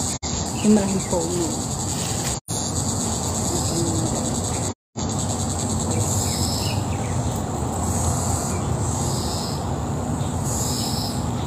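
Insects chirring in a steady high-pitched chorus, with a second high band that swells and fades over and over in the second half. The sound cuts out completely three times, briefly, in the first five seconds.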